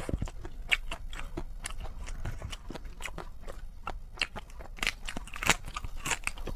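A person chewing and biting crunchy food in mukbang style: a close, continuous run of crisp crunches and wet clicks, with a few louder bites near the end.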